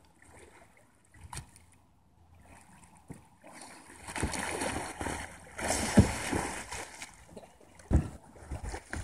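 Water splashing and sloshing as a capsized kayak is rolled back upright, starting about three and a half seconds in, with a heavier splash about six seconds in and another near the end.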